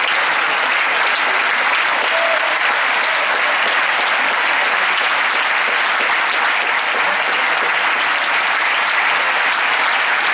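Large audience applauding steadily, a dense, even clapping with no break.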